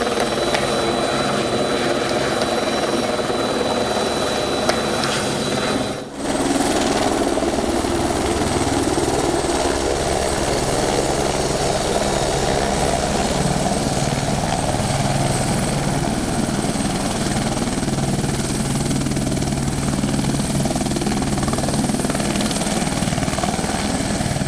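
Airbus AS350 Écureuil helicopter hovering low with a long line slung beneath it: a steady rotor beat with turbine whine, dropping briefly about six seconds in.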